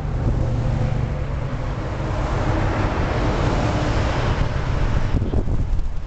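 Boeing 737 jet engines at takeoff power as the airliner climbs away, a steady rushing noise over a low hum that swells to its loudest about four seconds in, then drops off sharply near the end. Wind buffets the microphone throughout.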